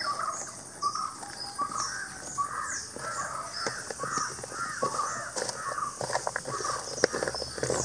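Crows cawing in a long run of short calls, two or three a second, with soft clicks from hands mixing cauliflower florets in a steel bowl in the second half.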